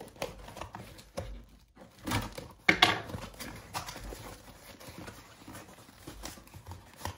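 A cardboard box being handled and opened by hand: its flaps knock, scrape and rustle in scattered sharp sounds. The loudest is a thump about two and a half seconds in, as the box is set down or turned.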